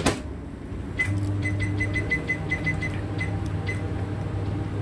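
Built-in microwave oven door shutting with a sharp clack, then a run of short, high keypad beeps as the 5-minute timer is set, and the microwave starting up with a steady low hum about a second in.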